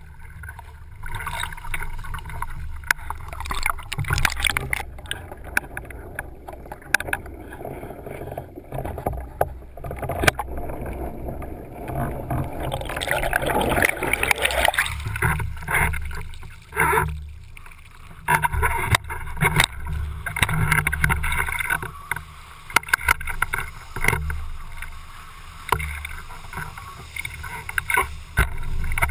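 Windsurf board sailing at speed, heard from a boom-mounted GoPro in its waterproof housing: a low wind rumble, rushing water and spray tapping the housing. About 13 seconds in, a dense gurgling rush comes as the camera goes under water.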